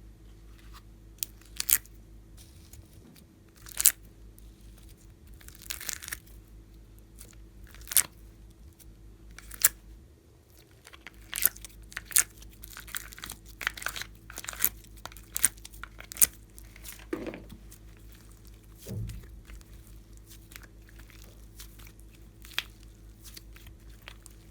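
Slime being squeezed and worked by hand, giving irregular sharp clicks, pops and crackles. They come thickest in the middle stretch, over a faint steady hum.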